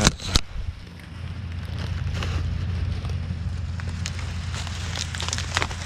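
Dry corn stalks and leaves crackling and rustling as they are handled and walked through, with a sharp crack just after the start. A steady low tractor-engine drone runs underneath.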